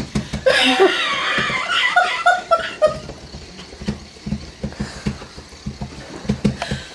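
A person laughing in a short run of breathy 'ha' sounds about a second in, then soft low thumps.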